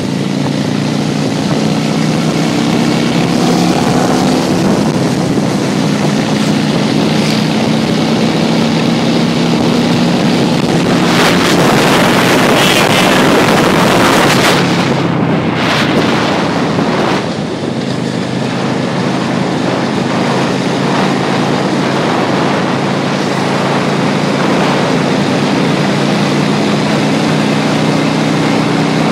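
Motorcycle engine running at a steady cruising speed, under heavy wind rush on the microphone. For several seconds around the middle, wind buffeting grows loudest and drowns out the engine note before it comes back.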